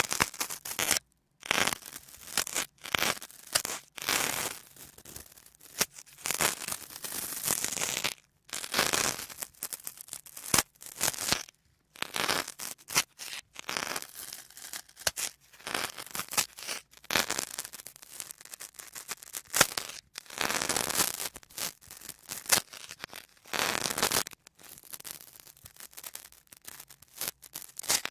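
Sponges being squeezed and rubbed close to the microphone, in irregular bursts of crisp noise with brief gaps between.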